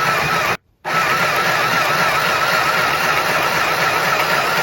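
Small electric mini sewing machine running steadily as it stitches fabric, a continuous motor whir with a wavering whine, broken by a brief total gap under a second in.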